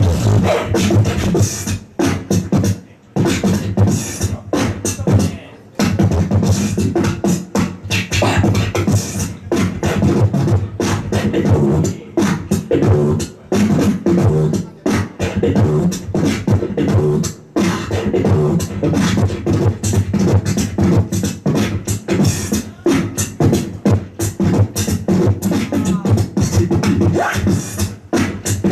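Beatboxer performing into a handheld microphone through a PA: fast vocal kick, snare and hi-hat patterns over low held bass notes, with brief breaks about two and five seconds in.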